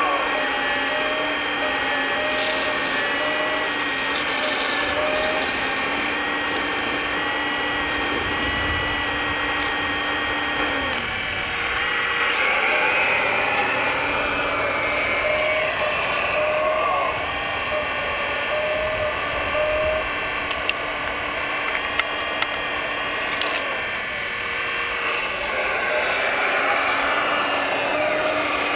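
Electric motors and hydraulic pumps of 1/14-scale RC construction machines whining together, several tones holding steady and then shifting in pitch as the machines work. There are a few light clicks a little past the middle.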